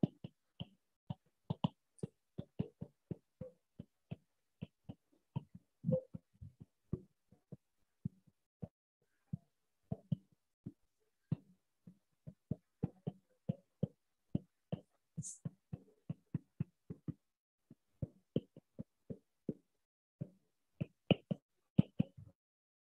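A stylus tapping and scraping on a tablet screen during handwriting: a long run of light, irregular clicks, about two or three a second.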